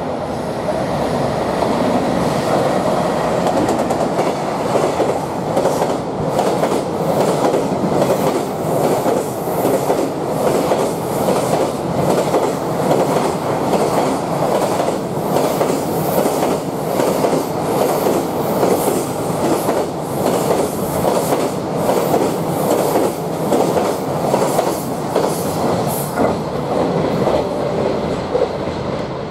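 Freight train running through a station at speed: an electric locomotive followed by a long rake of container wagons, their wheels clattering over the rail joints in a steady, repeating clickety-clack. The clatter fades as the last wagon goes by near the end.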